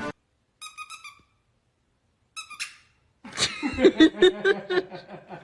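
A dog vocalising: two short runs of high-pitched squeaky cries, then about three seconds in a louder, wavering run of pulsed whining yelps lasting about two seconds.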